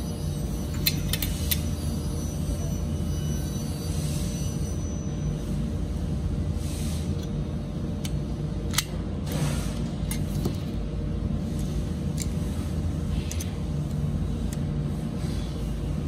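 Steel butterfly case latches being handled: scattered metallic clicks and light scrapes as the handle is turned and the latch worked, the sharpest click about nine seconds in. Under it runs a steady low rumble.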